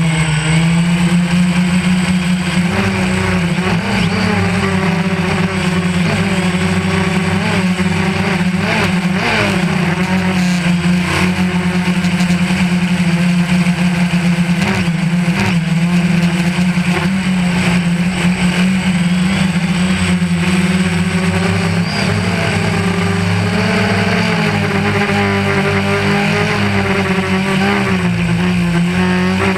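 DJI Phantom 1 quadcopter's motors and propellers running, a steady buzzing hum whose pitch shifts slightly up and down as the motors work against gusty wind.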